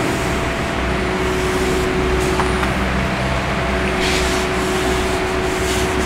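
Steady, fairly loud hum and hiss of constant background noise, with a faint steady tone running through it.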